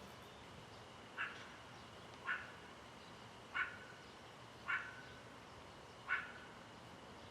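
Meerkat calls: five short, sharp barks spaced a little over a second apart.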